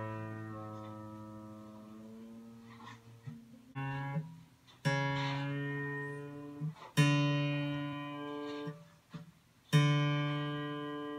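Single string of a Martin DCPA5 acoustic guitar plucked about five times, each note ringing and slowly dying away. Between plucks the tuning peg is turned and the pitch slides up, bringing the string to D.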